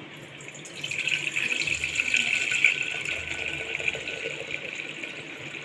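Cotton-seed milk being poured from a vessel into a bronze pongal pot: a steady pouring stream that starts about a second in and eases off near the end.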